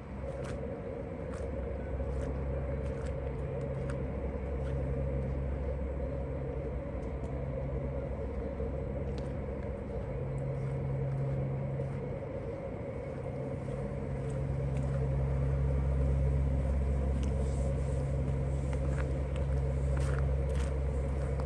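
A motor vehicle's engine running steadily with a low rumble, getting somewhat louder about two-thirds of the way through.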